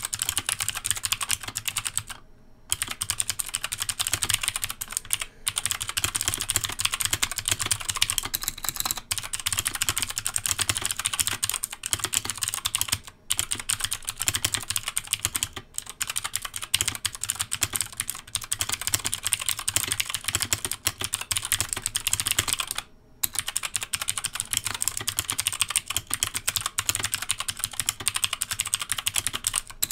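Fast, continuous typing on a Krux Neo Pro 60% mechanical keyboard with Gateron Blue clicky switches: a dense run of sharp key clicks with a couple of brief pauses.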